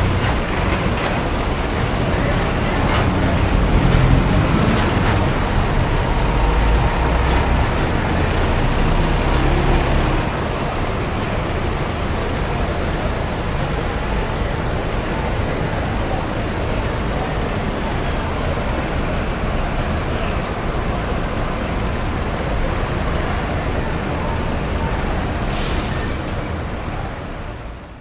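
City street traffic ambience: a steady wash of road noise, with a heavier low engine rumble for several seconds early on as a vehicle passes close. The sound fades out near the end.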